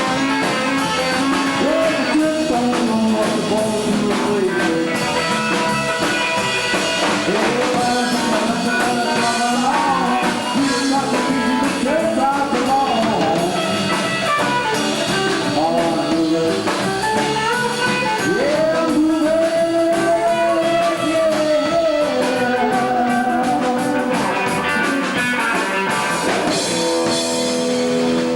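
Live rockabilly band playing a rock and roll number: electric guitar and drum kit, with a melody line that bends between notes and holds long notes.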